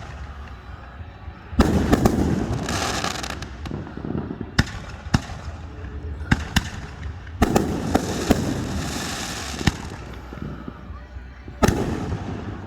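Fireworks going off: a string of sharp booms, about ten in all, some followed by a few seconds of crackling, with the loudest bursts about two seconds in, around seven and a half seconds in, and near the end.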